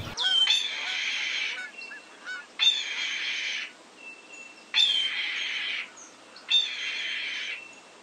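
Red-tailed hawk screaming four times, hoarse rasping screams about a second long each, roughly two seconds apart.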